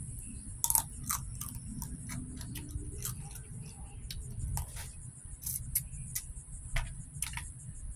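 Eating boiled blue crab: irregular sharp clicks and mouth smacks as meat is picked and sucked from the crab's legs and claws, the loudest about a second in.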